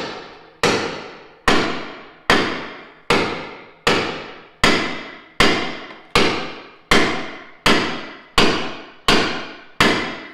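Hammer blows on the front frame of a Nissan Altima while a frame-machine chain holds it under pull, tapping to help the bent rail move over. Thirteen or so even strikes, a little more than one a second, each ringing out before the next.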